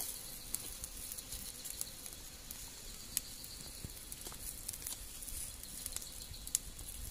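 Wood fire hissing beneath a bamboo rack of meat, with scattered sharp crackles and pops.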